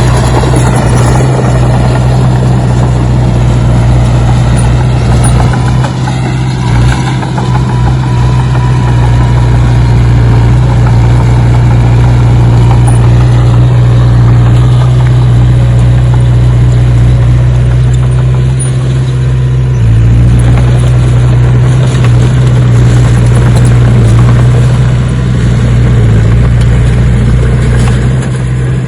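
Excavator engine running steadily with a loud low drone; shifting whines come and go over it in the first several seconds.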